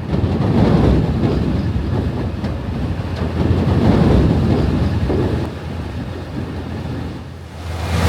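Heavy harvest machinery running: a loud, steady rumble that swells and eases, dips about six seconds in, and builds again near the end.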